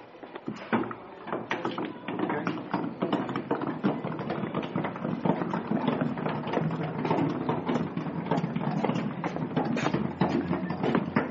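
Old Hotpoint 9534 washing machine being wheeled along, with a rapid, irregular clatter of rattles and knocks.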